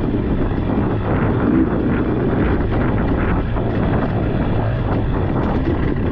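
Dirt bike engine running at steady low revs under the rider, with scattered clatter and knocks over the noise. The engine picks up briefly about a second and a half in.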